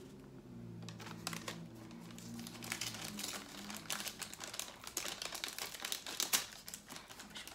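Paper wrapping being crinkled and pulled open by hand, in irregular crackling rustles that start about a second in.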